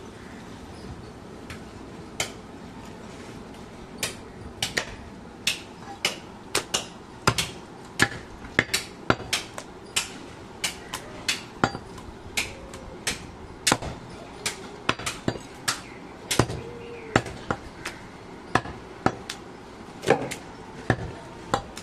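A large butcher's knife chopping goat meat on a round wooden log chopping block. The chops are sharp and irregular, one to three a second, and start about four seconds in.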